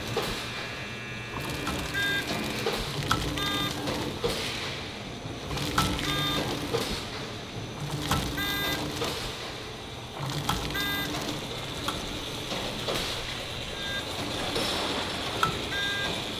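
Automated bag folding and packaging machinery running with a steady mechanical clatter and sharp clicks. Short high beeps or squeaks sound every two to three seconds.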